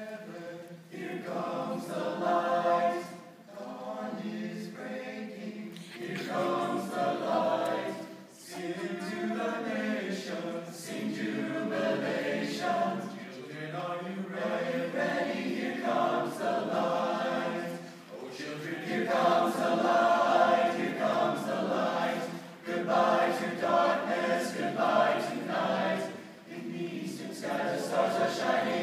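Male choir of young men singing, the sound swelling and easing with each phrase, with short breaks between phrases about eight and eighteen seconds in.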